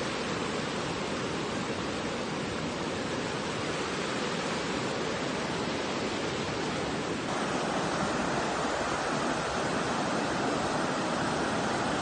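Water rushing over the rocks of a shallow waterfall and rapids as a steady, even noise. About seven seconds in, the sound shifts abruptly to a brighter, slightly louder rush.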